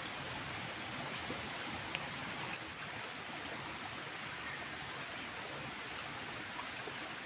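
Steady outdoor hiss of waterside ambience, with three quick high chirps about six seconds in.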